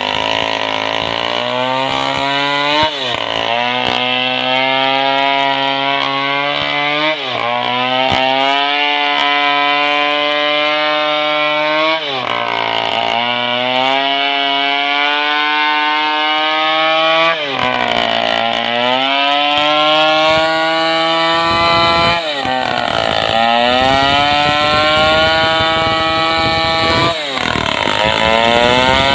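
Stihl 070 two-stroke chainsaw running hard while ripping a log lengthwise. Its pitch dips sharply and climbs back up about every four to five seconds.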